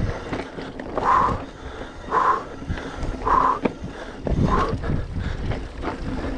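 A person's hard rhythmic breathing, four loud breaths about a second apart, over steady wind and riding noise.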